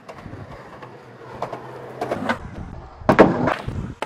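Skateboard wheels rolling on pavement with several sharp board clacks, then a loud crash about three seconds in as the skater slams onto the asphalt.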